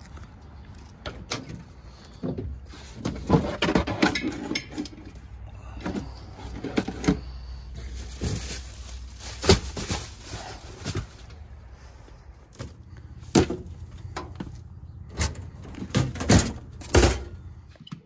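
Knocks, clicks and rattles of a work van's cargo area being opened and gear handled, with a few seconds of rustling hiss around the middle and several sharp knocks near the end.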